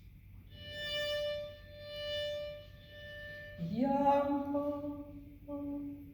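Solo violin playing a few long bowed notes on the same pitch, three equal notes shaped into a waltz lilt. The first notes are held and swell and fade; after about three and a half seconds come louder, lower notes in a long-short-long rhythm.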